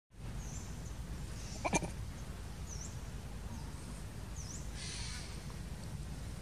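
Outdoor ambience: small birds giving short high chirps about once a second over a steady low rumble, with one brief sharp animal call about two seconds in.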